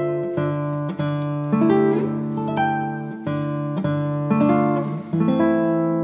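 Background music: plucked acoustic guitar playing a slow melody with chords, a new note or chord about every half second to a second.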